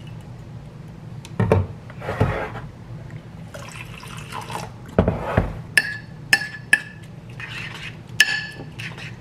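Liquid poured over dry oats in a ceramic bowl, first protein shake from a bottle and then water from a filter pitcher, with two dull thumps as the containers are set down. In the last few seconds a metal spoon stirs the oats and clinks against the bowl several times, each clink ringing briefly.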